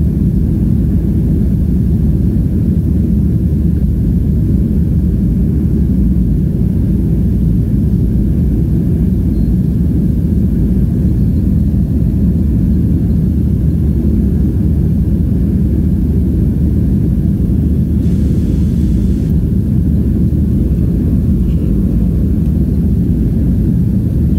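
Boeing 737-500's CFM56-3 turbofan engines and airflow heard inside the cabin during the climb after takeoff: a loud, steady, low rumble.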